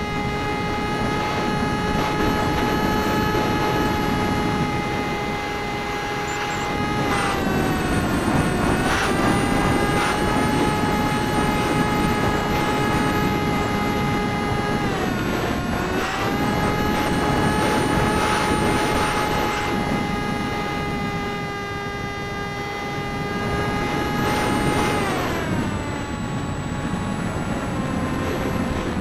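Electric motor and pusher propeller of a Parkzone Icon A5 RC foam plane in flight, heard from a camera on its cockpit: a steady high whine over wind rushing past the microphone. The pitch dips briefly three times and sinks lower near the end.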